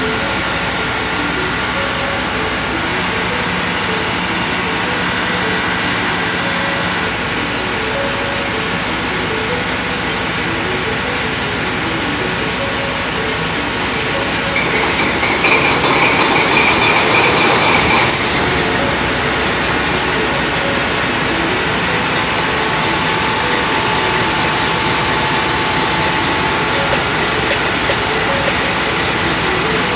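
Yanmar diesel generator engine on a cargo ship running on a test run just after its service, a loud steady mechanical din in the engine room. About fourteen seconds in, a louder rush with a high whine rises for about three seconds, then falls back.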